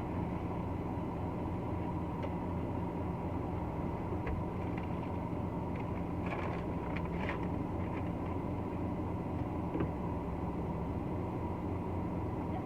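Steady hum of a car idling, heard from inside the cabin, with a few faint clicks and a brief rustle about six to seven seconds in.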